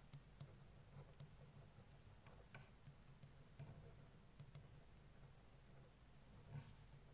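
Faint pen writing on paper: small scratches and ticks as the words are written, over a low steady hum.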